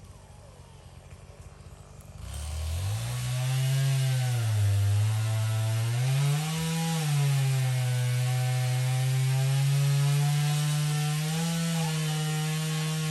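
A two-stroke chainsaw comes in about two seconds in and revs up, then runs at high speed with its pitch dipping and rising as it cuts through wood.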